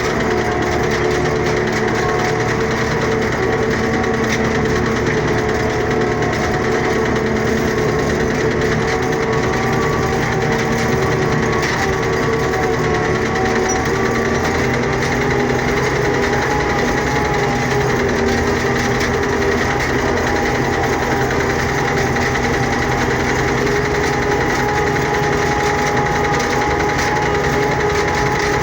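Tractor engine running steadily at a constant speed, its pitch holding nearly level with only slight drifts.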